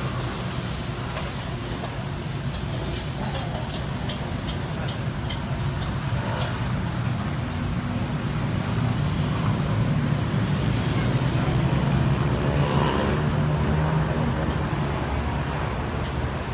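Gas wok burner running with a steady low rumble under a wok being stir-fried over high flame, a little louder past the middle. A run of sharp metal clicks in the first half: the spatula striking the wok as the food is tossed.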